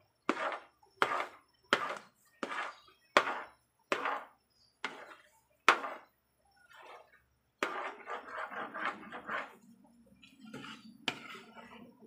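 Spoon scraping and stirring thick ube halaya mixture in a pan. The strokes come evenly, about one every three-quarters of a second, then there is a quick run of scrapes about eight seconds in, and after that the stirring goes softer.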